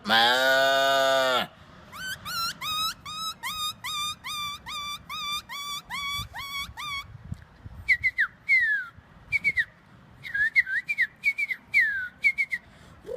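A man imitating animals with his voice. A long lowing cow moo ends about a second in. Then comes a quick run of rising whistled bird notes, repeated for about five seconds, followed by short falling whistled chirps.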